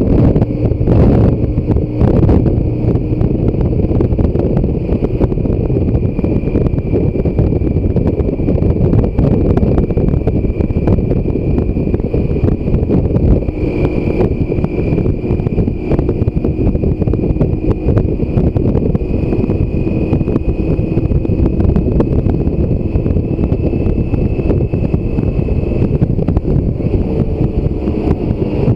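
Heavy wind noise on the microphone of a motorcycle riding at road speed, over the running of a 2016 BMW K1600 GTL's inline-six engine. A thin high whine creeps slowly up in pitch.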